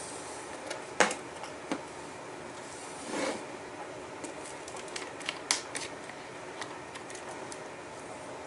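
Scattered sharp clicks and knocks of things being handled, with a short scraping rustle about three seconds in, over a steady hiss.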